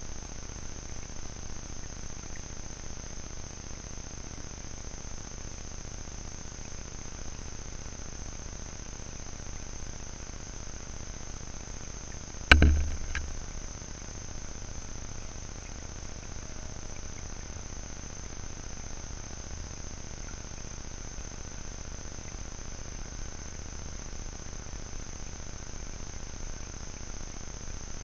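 A steady, high-pitched chorus of insects chirping in the grass, with one sharp, loud knock about halfway through that dies away over about a second.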